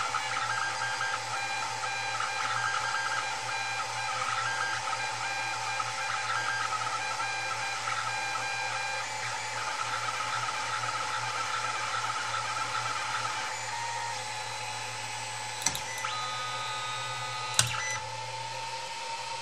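Creality Ender 2 3D printer printing: a steady whir from its fans with the stepper motors whining at shifting pitches as the print head moves. Near the end the motor tones change, and there are two sharp clicks about two seconds apart.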